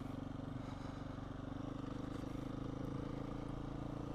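Beta 500 RR-S dual-sport motorcycle's single-cylinder four-stroke engine running steadily at an even pitch.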